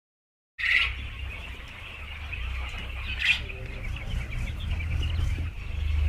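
A flock of Japanese quail chirping and calling in a dense, continuous chatter over a low rumble, starting abruptly about half a second in.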